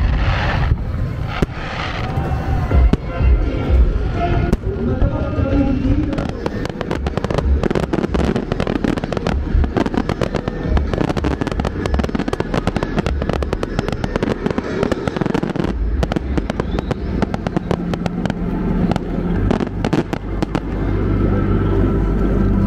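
Fireworks show: shells bursting with low booms, then a long run of dense, sharp crackling from crackle-star bursts, from about six seconds in until near the end.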